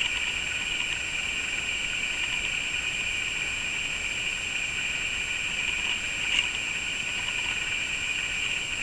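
Steady hiss of background noise with a thin high whine, and a faint click about six seconds in.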